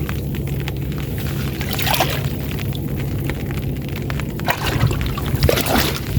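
Water sloshing and splashing in short bursts as a gill net is worked in shallow floodwater, over a steady low hum.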